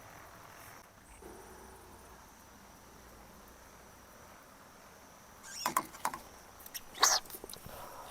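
Faint steady chirring of night insects, with two short bursts of rustling and clicks about five and a half and seven seconds in, the loudest sounds.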